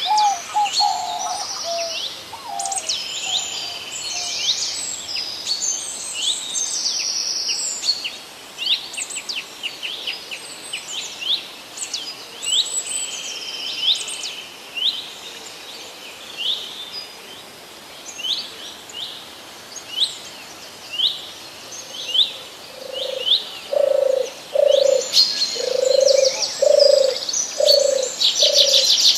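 Several songbirds chirping and calling, with short, sharp, repeated high notes throughout. In the last several seconds, a bird gives a run of about seven evenly spaced low calls.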